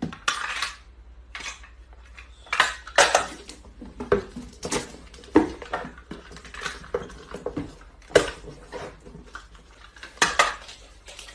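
Box cutter slicing packing tape and cardboard parcels being handled: an irregular run of short scrapes, rips and knocks.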